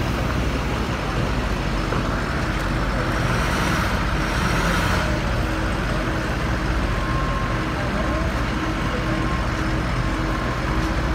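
City street traffic and the engine of an NYPD Emergency Service truck running as it slowly pulls away. The rumble stays steady throughout, with a louder rushing noise from about two to five seconds in.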